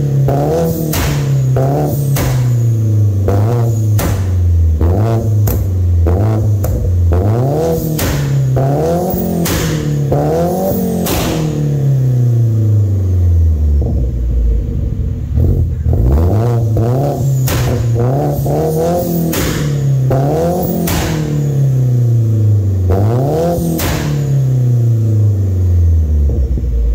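Turbocharged BMW B48 2.0-litre four-cylinder engine revved over and over, its pitch climbing and dropping back about every second and a half, with a sharp noise near the top of each rev. About halfway through the revs fall away for a couple of seconds, then the revving starts again.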